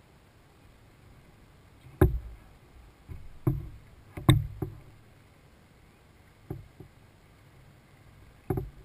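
Kayak hull knocked and slapped at irregular intervals, about eight sharp thumps with a short low ring, the loudest about two seconds in and again just after four seconds.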